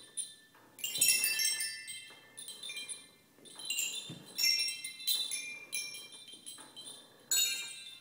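Musical swing's hanging chime rods beneath the seat, struck and jangling together with each swing. The ringing comes in high clusters every second or so, each fading out before the next.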